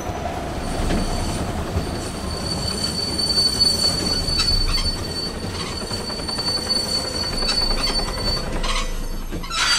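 Cartoon steam locomotive braking hard: steel wheels squeal on the rails over a rumbling run of the train, one long steady high squeal that stops about eight and a half seconds in. A short rush of noise comes just before the end.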